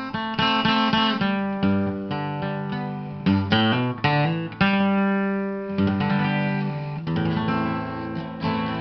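Acoustic guitar music: plucked notes and strummed chords.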